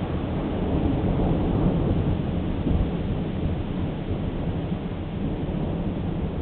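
Distant thunder from a forming thunderstorm rolling as a low, continuous rumble, a little louder between about one and three seconds in.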